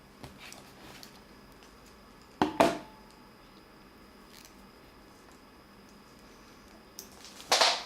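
Short handling noises from multimeter probes and a laptop charger plug being fitted together: one sharp scrape-and-knock about two and a half seconds in and another near the end, with a few faint clicks between them, over a faint steady high hum.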